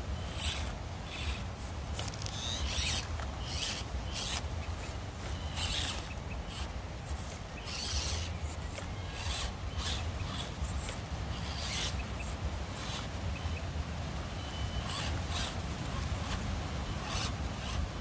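Small electric Axial SCX24 Deadbolt RC rock crawler climbing over rock: many short, irregular bursts of high motor and gear whine as the throttle is worked, with tyres scrabbling on stone. A steady low rumble runs underneath.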